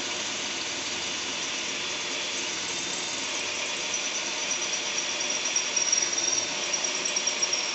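Electric drill with a titanium-coated high-speed steel bit running steadily as it cuts into the steel of a safe. A high squeal from the bit on the metal comes in about four seconds in. The steel being cut is mild steel, not the hard plate.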